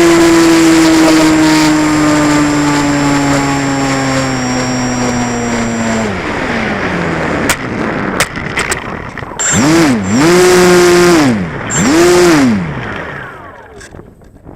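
Model Cessna 185's engine running at high power, its pitch sinking slowly, then throttled right back about six seconds in, with a few sharp knocks. Two short throttle blips follow, each rising and falling in pitch, before the engine stops and only wind noise remains.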